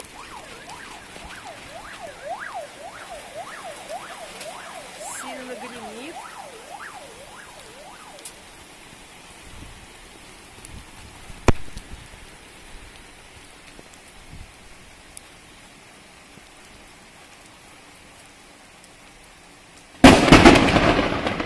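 Heavy rain falling steadily in a thunderstorm. About 20 seconds in, a sudden loud thunderclap breaks out, then rumbles on and fades.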